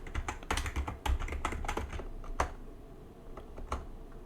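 Computer keyboard typing: a quick run of keystrokes for about two and a half seconds, then a few scattered keystrokes near the end.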